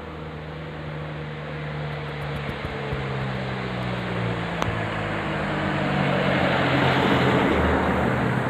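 A bus approaching on the road, its engine and tyre noise growing steadily louder; a loud horn blast breaks in right at the end.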